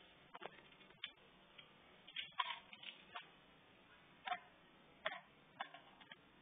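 Irregular sharp clicks and short scrapes of crabs' legs and claws scrabbling on a hard tile floor as they fight, about ten in all.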